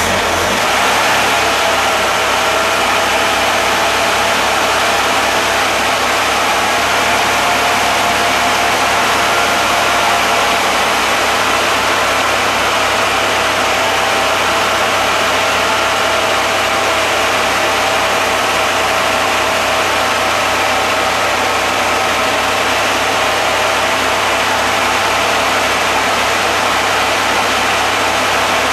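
Freshly rebuilt Corvair air-cooled flat-six engine running steadily on its initial break-in run, just after its first start following the rebuild, with a steady whine over the engine note.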